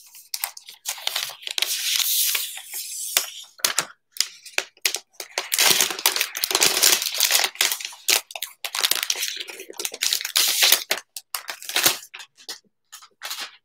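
Clear plastic protective wrap crinkling and rustling as it is peeled off a new tablet, in several bursts a few seconds long with short pauses between.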